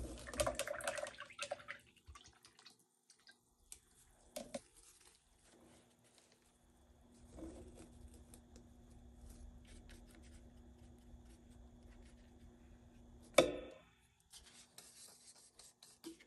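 Faint scraping and dabbing of a paintbrush mixing paint on a paper plate: soft rubbing with scattered light ticks, and one brief louder knock about thirteen seconds in.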